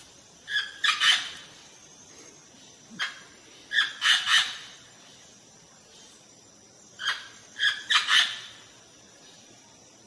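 Green Amazon parrot calling: loud, harsh squawks in three bouts of several calls each, the bouts about three seconds apart.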